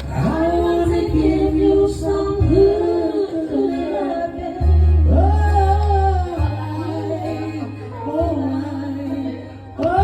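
A singer holding long, wavering notes over steady bass notes in a live band sound check.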